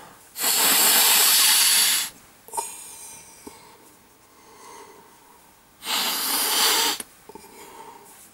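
A man sniffing in hard through his nose twice: a long, loud hissing inhale of about a second and a half, then after a pause a second one of about a second, with faint sniffles in between.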